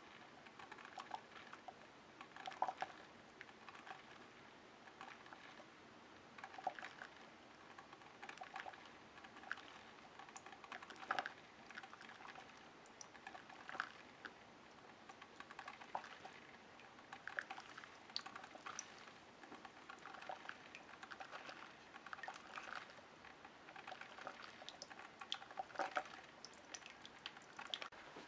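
Single-serve drip coffee maker brewing a cup: faint, irregular ticks and pops with coffee dripping into the mug.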